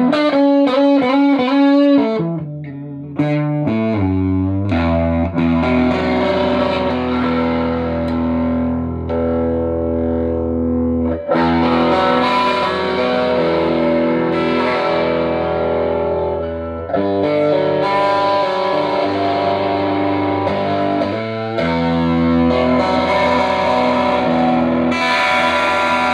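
Electric guitar with humbucking pickups, a PRS, played through a Fender Excelsior tube combo (push-pull 6V6 output) set into overdriven breakup: sustained chords and note lines, the notes wavering in pitch in the opening couple of seconds. The amp has been rebiased for early breakup.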